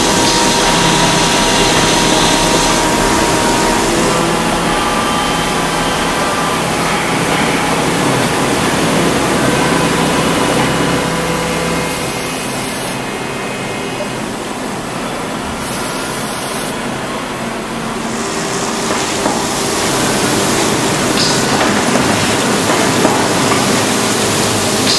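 CNC machining centre running: a steady mechanical hum with hiss, dipping somewhat in loudness about halfway through.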